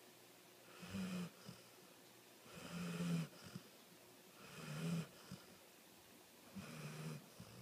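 A sleeping dog snoring: four snores about two seconds apart, each lasting under a second.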